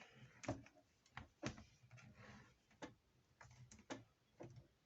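Faint, scattered clicks and taps of a laptop's bottom cover being handled and fitted back together.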